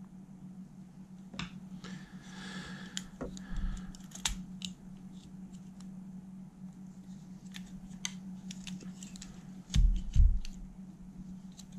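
Small clicks, ticks and scrapes of plastic and metal parts as the tape transport mechanism of a Sony TC-K611S cassette deck is handled and taken apart, with two louder low thumps near the end. A steady low hum runs underneath.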